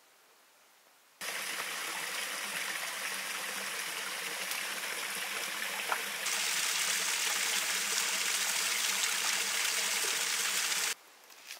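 Water running steadily. It starts abruptly about a second in, gets brighter and a little louder about halfway through, and cuts off abruptly near the end.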